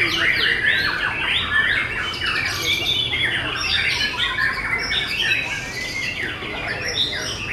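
White-rumped shamas (murai batu) singing over one another: a dense, unbroken stream of quick whistled notes sweeping up and down, mixed with harsher, scratchy phrases.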